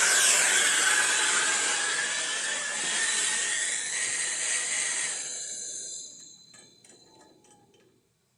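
Gas torch hissing steadily as it heats the washing machine's transmission hub to free it from the basket, then dying away about five seconds in as the flame is turned down, with a few faint clicks.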